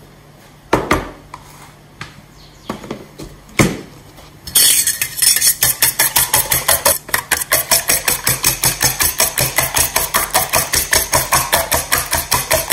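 Metal spoon beating eggs in a stainless steel bowl. A few separate knocks come first, then from about four seconds in a fast, even clatter of the spoon scraping and clinking against the bowl, about five strokes a second.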